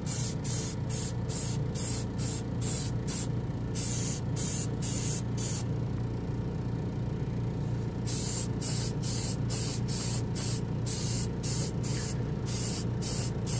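Airbrush spraying lacquer paint in short trigger pulls: quick bursts of hiss, about two or three a second, with a pause of about two seconds midway. A steady low hum runs underneath.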